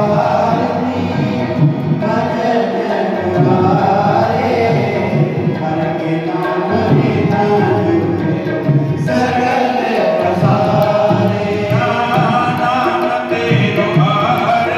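Devotional hymn (shabad kirtan) sung in a chanting style by several men's voices, with tabla drums playing along.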